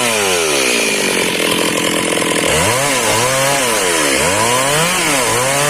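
Chainsaw cutting through wood, its engine pitch sinking for the first couple of seconds under load, then rising and dipping several times as the chain bites into the cut.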